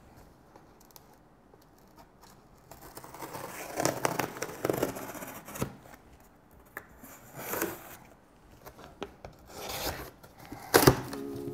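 Packing tape on a cardboard shipping box being slit and torn open, with scraping and rustling of the cardboard flaps. It starts about three seconds in, and a few louder rustles follow later.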